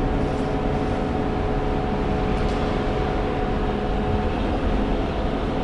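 Heavy-duty diesel pickup engine pulling at wide-open throttle up a steep grade with about 30,000 lbs in tow, heard inside the cab as a steady drone. A steady whine rides over it and fades out about four seconds in.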